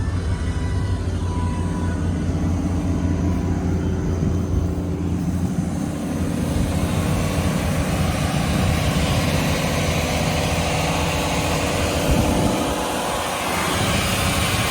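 2002 Ford F-250 Super Duty pickup's Triton gasoline engine running steadily, growing fuller and a little louder from about six seconds in.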